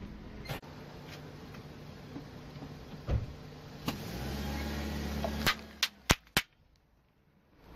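A car creeping forward with its engine running, then four sharp pops and cracks in quick succession as its tyre crushes a row of Colgate toothpaste tubes capped with small balloons; the sound cuts off just after.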